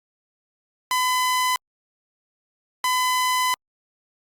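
Two short, buzzy electronic beeps, each under a second long and about two seconds apart, the last two of a set of three: end-of-message tones closing a mock emergency alert broadcast.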